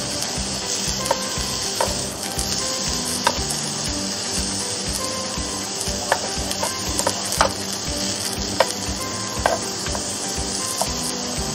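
Vegetables sizzling on the plates of an electric contact grill, with metal tongs clicking sharply against the grill about nine times as the food is turned.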